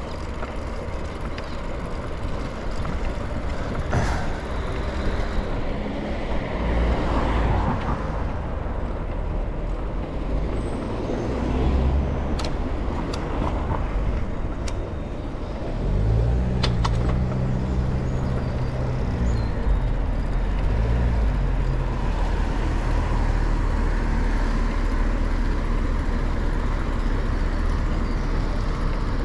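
City street traffic heard while cycling: a steady low rumble throughout, with a few sharp clicks near the middle. A motor vehicle's low engine drone comes in just past the middle and lasts about five seconds.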